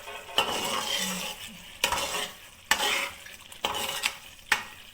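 Spoon stirring daal in a cooking pot, with five sharp knocks against the pot about a second apart and a stirring, sizzling noise between them.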